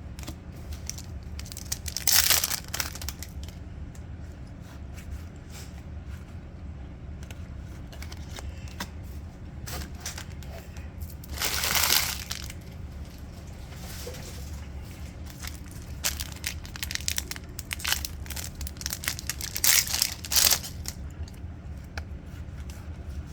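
Kayou trading-card booster packs being torn open and their wrappers crinkled, in several short loud bursts, over a steady low hum.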